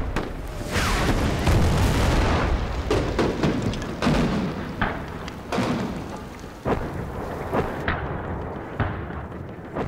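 Battlefield sound effects: a shell explosion early on with a long, dense rumble, followed by a series of sharp cracks and blasts about once a second that thin out and grow quieter near the end.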